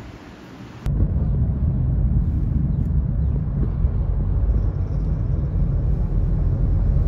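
Steady low rumble of a moving car heard from inside its cabin: road and engine noise that starts abruptly about a second in, after a short stretch of faint outdoor background.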